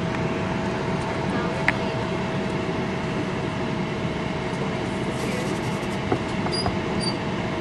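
Steady low rumble of a car idling with its window open, with a constant thin hum tone over it. There are a couple of small clicks and two short high beeps near the end.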